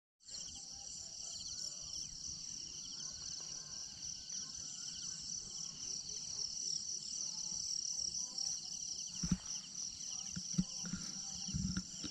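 Steady, dense chorus of insects trilling high and shrill in grass by the water, with a few low thumps near the end.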